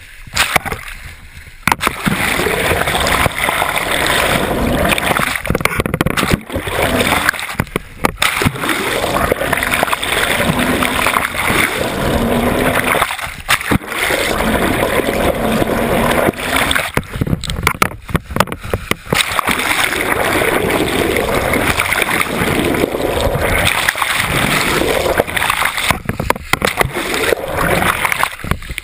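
Sea water splashing and rushing against an action camera held at the surface, a loud continuous wash that drops out suddenly and briefly several times.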